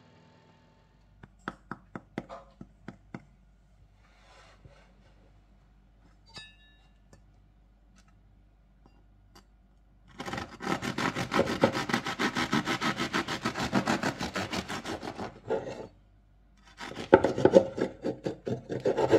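Knife sawing through the crisp baked crust of a focaccia: a rapid crunching, scraping crackle in two bouts, a long one about ten seconds in and a shorter, louder one near the end. A few faint clicks come before it.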